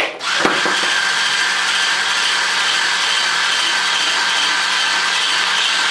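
Electric hand blender with a balloon-whisk attachment switching on a moment in and running at a steady speed, a constant motor whine, as it beats egg-and-sugar batter with flour in a plastic jug.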